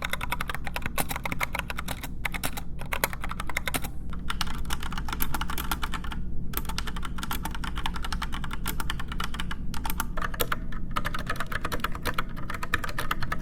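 Fast typing on mechanical keyboards in a switch sound test: the Rapoo MT500's low-profile linear switches compared with Cherry MX Red and Gateron Brown switches. The clicking is dense and steady, with a few short pauses.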